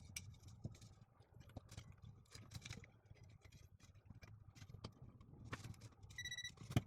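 Small plastic parts of a coffee grinder handled and fitted together during reassembly: faint scattered clicks and light rustling, with a sharp click near the end. A brief high beep-like tone sounds about six seconds in.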